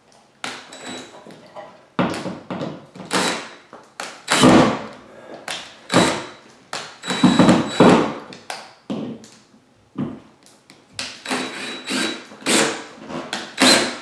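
Cordless drill driving the mounting screws of a wall switch into a plastic electrical box, in a string of short stop-start bursts.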